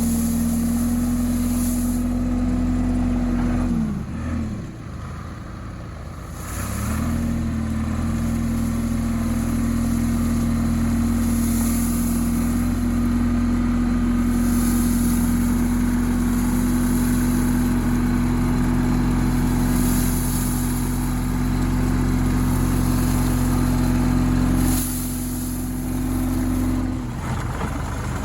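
Tractor engine running at steady working speed. About four seconds in it throttles down sharply, then picks back up a couple of seconds later, and it drops off again near the end.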